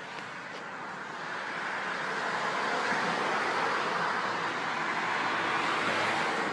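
A car passing on the road: the rush of its tyres and engine grows louder over the first few seconds and stays strong to the end.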